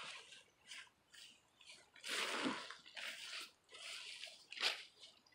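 Gourd vine leaves rustling and brushing against each other in short, irregular swishes as they are pushed aside, the loudest swish about two seconds in and a sharp one near the end.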